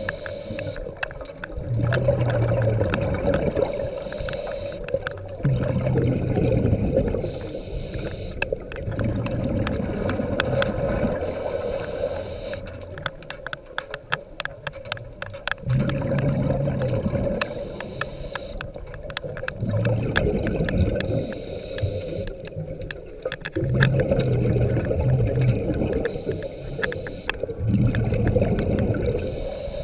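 Scuba diver breathing through a regulator underwater: a hiss on each inhale, then a low rumble of exhaled bubbles, the cycle repeating about every four to five seconds.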